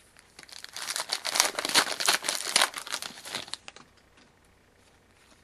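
Foil wrapper of a trading-card pack being torn open and crinkled, a dense crackling for about three and a half seconds, then a few faint light ticks as the cards are handled.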